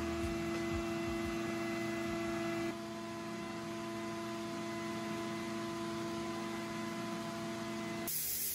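A steady electrical hum made of several held tones. Part of it drops away about a third of the way in, and a high hiss starts near the end.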